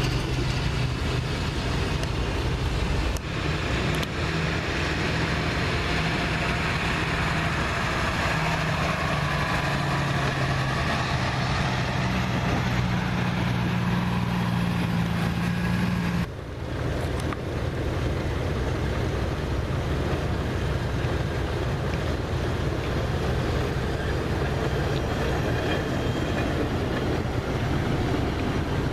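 Loram rail grinder train running on the track: a steady diesel engine drone whose pitch shifts slowly, over a broad rushing noise. About 16 seconds in the sound breaks off abruptly, and the rushing noise carries on without the engine tones.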